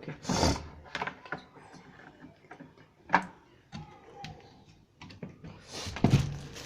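Knocks and clicks from the plastic lid and controls of a semi-automatic washing machine's spin-dryer being handled. There is a thump about half a second in, sharp clicks at about one and three seconds, and more knocks near the end. No motor runs.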